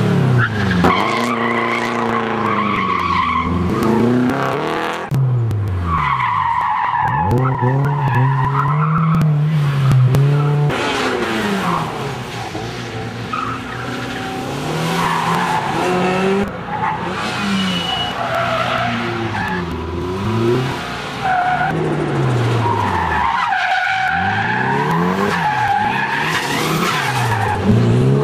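An engine revving up and down again and again as the vehicle brakes and accelerates through tight pylon turns, with tyres squealing through the turns.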